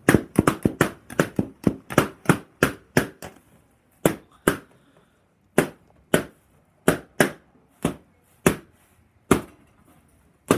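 Balloons bursting one after another with sharp pops: several a second for the first three seconds, then spaced out to one or two a second.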